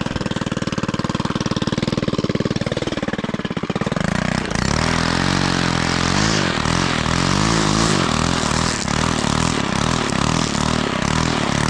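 Lawn mower engine running with a rapid low beat. About four and a half seconds in it speeds up and runs faster and smoother, its pitch wavering.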